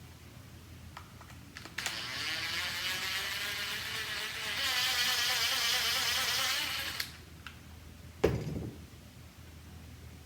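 Cordless screwdriver motor running for about five seconds with a wavering pitch, working a stuck screw out of the sander's plastic housing, then a single knock about a second later.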